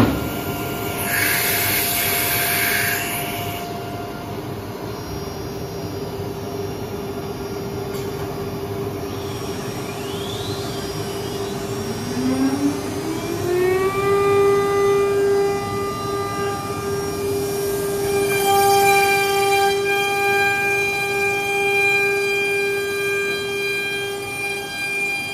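Hiteco 11 kW water-cooled CNC router spindle running with a steady high whine. About a second in there is a hiss lasting about two seconds. Around the middle the spindle spins up, its pitch rising over about two seconds, then holds a steady, louder whine with several overtones.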